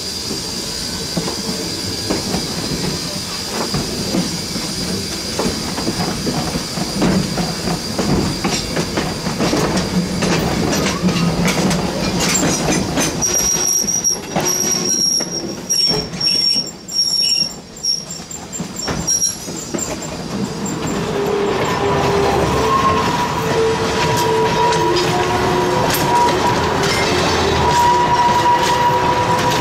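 Railroad cars' steel wheels rolling on the rails with clicking and high flange squeal, heard from aboard a coach. About two-thirds of the way in it changes to trackside, where slow-moving open-air coaches roll past with a lower, wavering wheel squeal.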